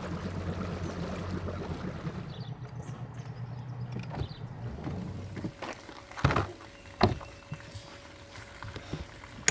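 Bass boat outboard motor running at low idle speed for the first few seconds, then fading out. Two sharp clunks follow about six and seven seconds in as a deck hatch latch is worked, over a faint steady hum.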